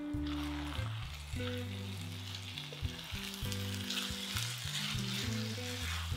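Minced meat and onions sizzling in a hot frying pan while a spatula breaks up and turns the meat, with a few short scrapes of the spatula against the pan.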